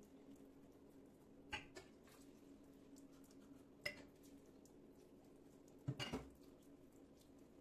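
Glassware and a ceramic mug knocking against each other and the steel sink as they are handled: a clink about a second and a half in, a sharp one near four seconds, and a quick double knock about six seconds in.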